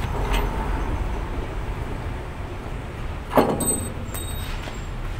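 A single sharp metallic clank about three seconds in, from a tool knocking on the brake hardware under the truck, ringing briefly. Under it runs a steady low rumble.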